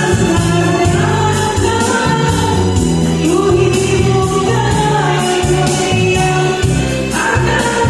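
Music: a song played over a full backing track with singing and a steady, repeating bass line.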